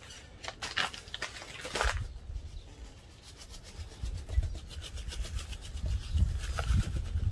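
Seasoning shaken out of a nearly empty spice shaker in quick rattling strokes, about four or five a second for roughly two seconds, then a low rumble.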